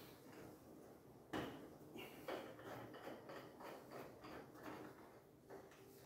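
Bar clamp being worked at the corner of a door frame: a knock about a second in, then a run of quick light clicks.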